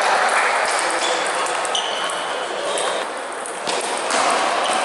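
Table tennis ball clicking off the bats and the table during a serve and rally, over the background noise of a sports hall with chatter from other tables.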